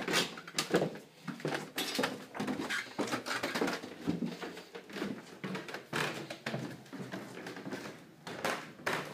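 Footsteps going down wooden stairs: a string of irregular thuds and knocks, about two a second.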